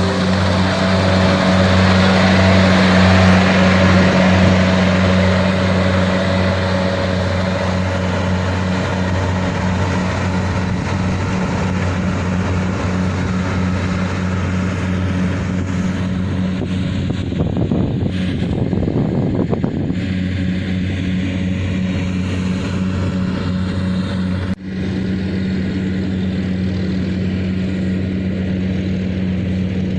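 Diesel engine of a Kubota harvesting machine running at a steady speed, with a short dropout about four-fifths of the way through.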